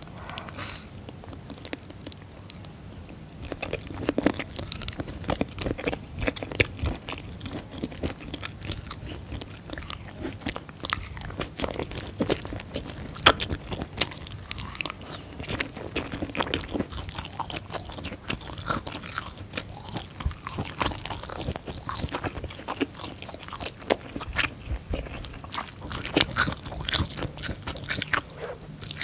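Close-miked biting and chewing of wide, flat tofu noodles in tteokbokki sauce: wet mouth sounds with many short smacks and clicks, getting a little louder about four seconds in.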